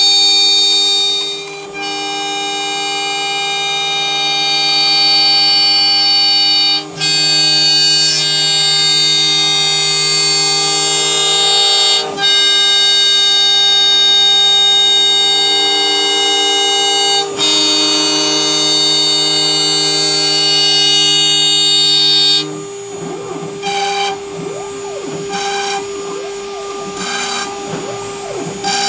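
CNC router spindle running at 24,000 RPM with a quarter-inch two-flute end mill cutting a slot in a wooden test board: a loud, steady high whine that dips briefly about every five seconds. About 22 seconds in it drops and turns uneven as the program moves on to boring the holes.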